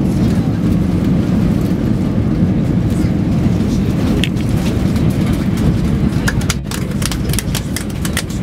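Cabin noise of an Airbus A320 during its landing roll: a loud, steady low rumble of the airliner rolling down the runway with its spoilers up. About six seconds in, a run of sharp clicks and rattles begins.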